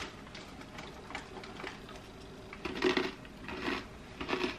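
A person chewing crunchy baked focaccia bites, mouth closed. The rhythmic crunching starts a little over halfway through and comes about every two-thirds of a second.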